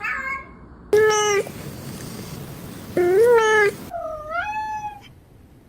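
A cat meowing three times: a short flat meow about a second in, a louder meow about three seconds in, and a higher meow that rises in pitch about four seconds in.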